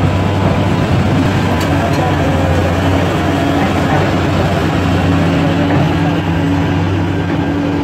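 Caterpillar 336 hydraulic excavator's diesel engine running steadily under load as the machine swings and works its boom.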